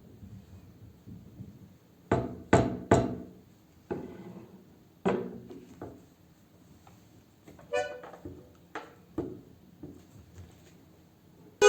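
A series of separate knocks and taps from objects being struck. Three sharp ones come in quick succession about two seconds in, and more follow spaced out, with a short ringing note near eight seconds.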